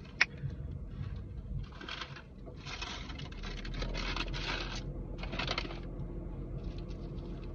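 A sharp click, then several bursts of rustling and crinkling from food packaging being handled, with a few small ticks.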